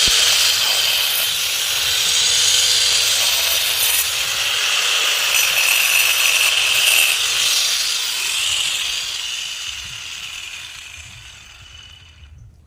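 Power saw cutting stone: a steady, loud, high grinding hiss that fades away over the last few seconds.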